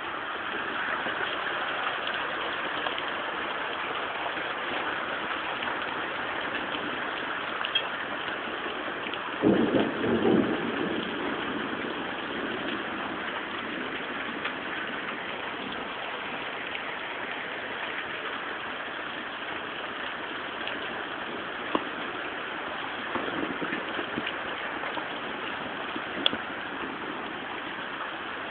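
Hail and heavy rain pelting down as a steady hiss, with a few sharp ticks of hailstones striking and a brief, louder low rumble about ten seconds in.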